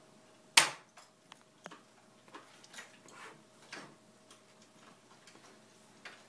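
A single sharp knock, then a few quieter clicks and short rustles, over a faint steady hum.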